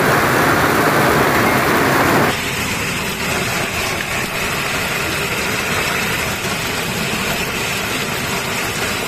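Heavy storm noise, a dense steady roar of hard rain and hail with wind. About two seconds in it cuts to a second, somewhat quieter recording of the same kind.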